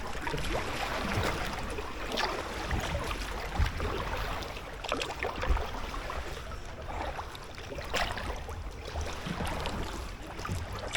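Double-bladed paddle dipping and splashing in canal water beside an inflatable packraft, with a few sharper splashes at uneven intervals over a steady low rumble.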